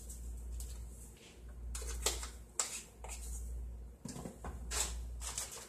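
Seasoning salt shaker handled over a plastic food bag: a few light clicks and rustles as it is shaken, then a small knock about four seconds in as the bottle is set back.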